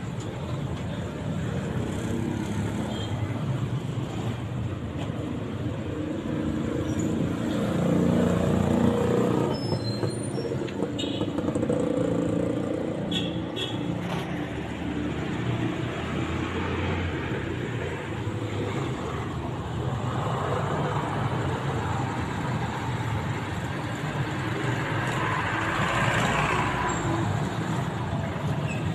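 Street traffic: motorbikes and cars passing on the road, a steady rumble that swells as vehicles go by, loudest about eight seconds in and again near the end.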